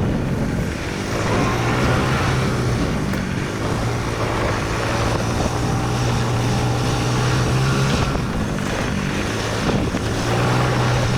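An engine running steadily with a constant low hum, among busy workshop background noise.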